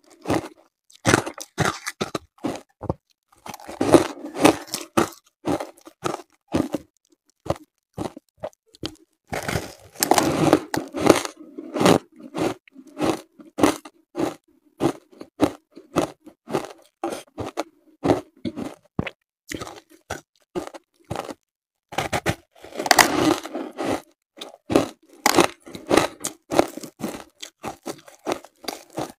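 Reshaped ice (refrozen purple-coloured shaved ice coated in matcha powder) being bitten and chewed. It makes a long run of sharp crunches and crackles with short gaps, coming thickest about four seconds in, around ten to eleven seconds, and near twenty-three seconds.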